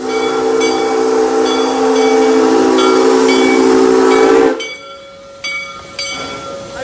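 Locomotive whistle blowing one long chord of several notes that cuts off suddenly about four and a half seconds in. The locomotive's bell rings about once a second throughout.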